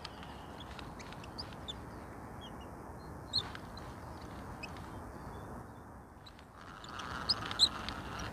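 Birds calling outdoors: short, high chirps scattered throughout over a steady low background hiss, with a louder run of calls near the end.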